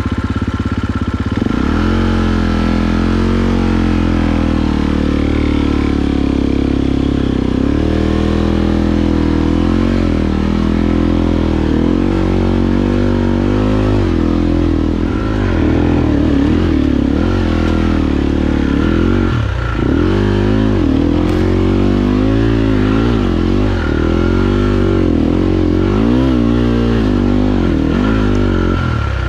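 KTM 250 EXC-F Six Days' single-cylinder four-stroke engine working under load up a rocky climb, steady at first, then revs rising and falling again and again as the throttle is worked through the second half.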